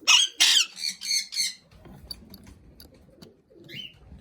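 A parrot squawking: four loud, harsh calls in quick succession in the first second and a half, then a short chirp near the end.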